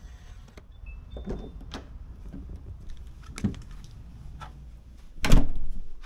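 Level Bolt smart deadbolt unlocking on command from a phone app: a few light clicks and a short high beep, then a louder burst lasting over half a second near the end as the motor draws the bolt back and the door opens.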